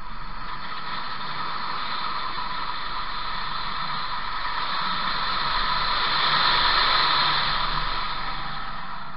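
Chevrolet Bolt EV, an electric car, driving hard through an autocross course: a steady rush of tyre and wind noise heard from inside the cabin, with no engine note. The noise swells about six seconds in, then eases off.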